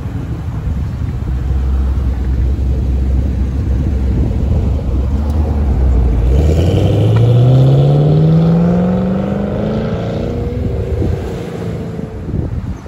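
Fifth-generation Chevrolet Camaro engine and exhaust at low revs as the car pulls out, then accelerating: the note climbs steadily in pitch for about three seconds, loudest in the middle, then fades as the car drives off.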